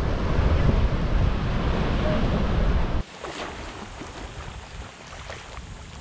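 Ocean surf breaking on a sandy beach, with heavy wind rumble on the microphone. About three seconds in it cuts suddenly to a quieter wash of small waves lapping and fizzing over wet sand.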